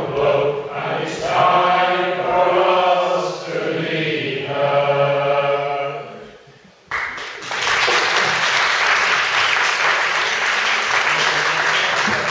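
A male shanty choir singing unaccompanied, ending a sea shanty on a held final note that dies away about six seconds in. Audience applause breaks out suddenly about a second later and keeps going steadily.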